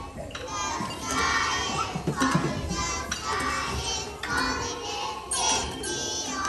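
A chorus of young children singing together in unison, phrase after phrase.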